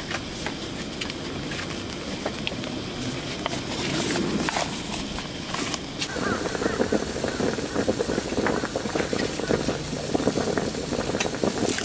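Outdoor ambience with faint, indistinct voices and scattered small clicks and knocks, growing busier and a little louder about halfway through.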